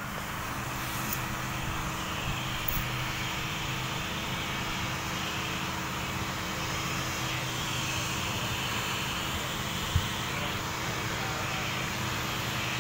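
Handheld electric heat gun blowing steadily, a constant fan hum, while it heats window tint film on a car windshield before the film is fitted. One short knock about ten seconds in.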